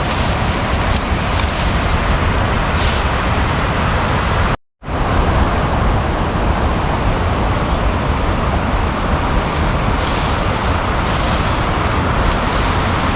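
Steady, loud rushing of water, broken by a brief cut to silence about four and a half seconds in.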